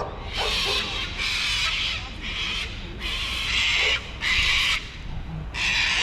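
A bird giving a series of about six harsh, raspy squawks, each lasting around half a second to a second.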